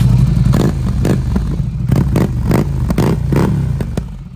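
Ducati Scrambler 800's air-cooled L-twin running through a Termignoni full titanium exhaust, with a quick, regular series of short sharp bursts, about three a second, over a steady low drone. It gets quieter near the end.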